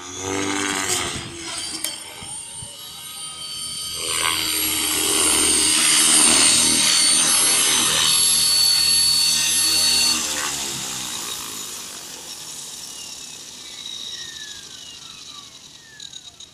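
Align T-Rex 550L electric RC helicopter running loud, its motor whining and rotor blades whooshing as it comes in and lands. About ten seconds in the power is cut and the rotor spools down with a falling whine.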